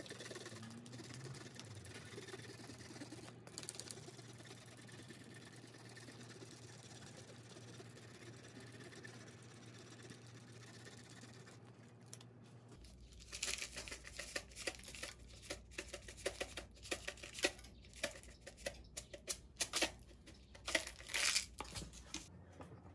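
Hard cheese being grated by hand on a metal grater over a plate: faint rasping at first, then louder, irregular scratchy strokes from a little past halfway.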